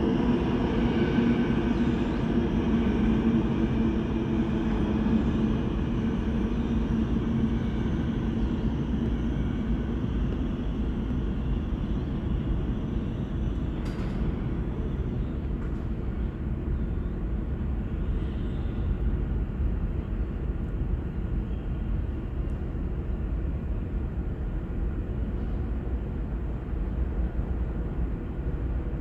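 A New York City subway train pulling away down the tunnel, its motor whine and wheel rumble fading slowly over a steady low station rumble. A single sharp click about halfway through.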